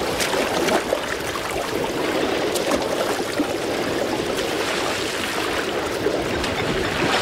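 Water splashing and churning steadily as a herd of African elephants wades hurriedly out of a waterhole.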